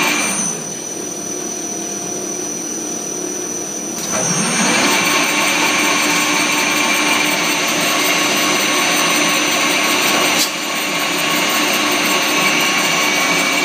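Angeli AV-TZ vertical rotary wire coiler running, a steady mechanical whir with a high whine as it winds thin wire into a coil. It drops quieter about half a second in and comes back up around four seconds in with a short rising hum. One sharp click comes near the end.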